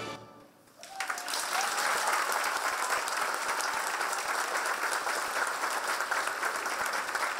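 Theater audience applauding, breaking out about a second in just as the last of the music dies away, then steady clapping.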